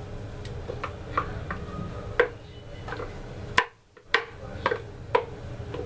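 Spatula scraping and knocking against a blender jar as thick blended bread batter is poured out into a bowl: a string of light taps over a low background hum, with a brief gap a little past the middle.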